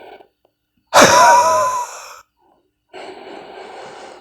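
A man's forceful open-mouth huff, the huffing exercise done after a half breath in to shift phlegm from the lungs up into the airways. It comes once, about a second in, lasts about a second and carries a wavering wheezy whistle, with quieter breaths in on either side.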